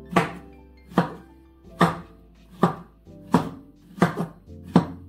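Kitchen knife chopping strawberries, each cut ending in a sharp knock on the worktop: seven even chops, a little under one a second. Music plays quietly in the background.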